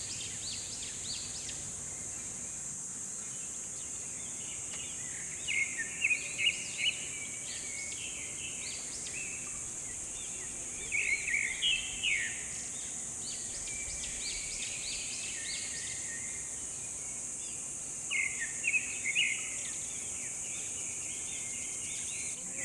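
Birds chirping in three short bouts of quick, high notes over a steady high drone of insects.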